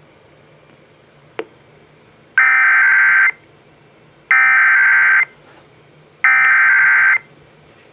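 Emergency Alert System SAME header: three identical buzzy, screeching data bursts of about a second each, a second apart, coming over the radio to open a weather warning. A faint click comes before them.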